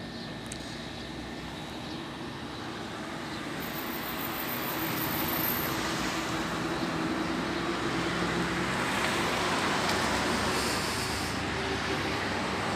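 Road traffic noise, swelling louder about a third of the way in as a vehicle goes by.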